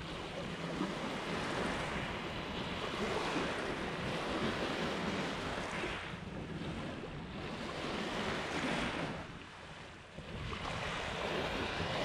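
Small lake waves washing onto a pebble beach, surging and drawing back in a slow rhythm, with a lull about ten seconds in before the next wave breaks. Some wind rumble on the microphone underneath.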